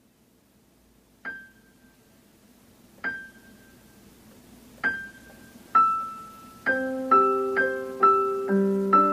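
Piano introduction to a slow song: a single high note struck and left to ring three times, about two seconds apart, then more notes and low chords join in from a little past halfway.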